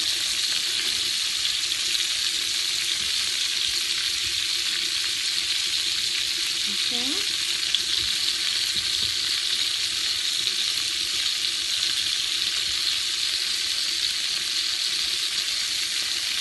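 Bacon-wrapped asparagus and cream-cheese-stuffed jalapeños sizzling steadily in a frying pan over medium heat, the bacon fat spitting and crackling in an even hiss.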